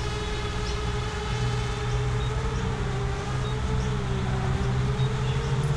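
Small FPV quadcopter's electric motors and propellers whining steadily in flight, the pitch wavering gently up and down as the throttle changes.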